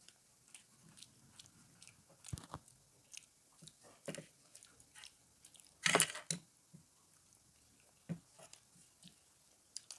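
Close-up chewing and biting into pizza: irregular short mouth clicks and smacks, the loudest about six seconds in.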